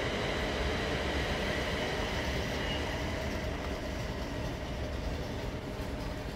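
Steady hum and hiss of an electric commuter train standing at a platform with its doors open, with a faint high whine that fades over the first few seconds.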